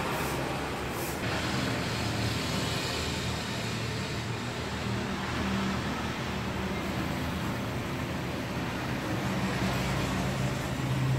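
Street traffic: a steady rumble of vehicle engines, with a low engine hum growing stronger near the end.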